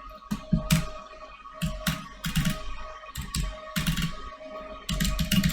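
Typing on a computer keyboard: irregular clusters of quick keystrokes, each a sharp click with a dull thump, over a steady background tone.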